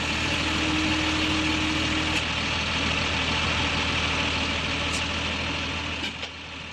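Engine sound effect: motor vehicle engines running steadily, with a steady hum that stops about two seconds in, the whole sound fading out near the end.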